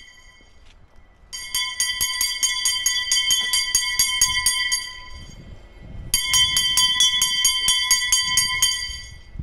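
A town crier's handbell rung rapidly, about five strokes a second, in two long bouts with a short pause between them.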